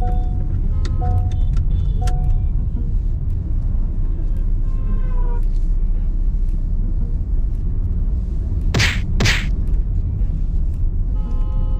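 Steady low rumble of road and engine noise inside a moving car's cabin. A two-note chime repeats about once a second during the first couple of seconds. About nine seconds in come two short sharp hissing bursts about half a second apart.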